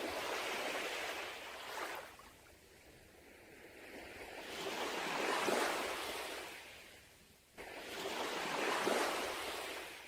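Sea waves breaking and washing up a beach. The surf swells and fades three times, one surge every three to four seconds.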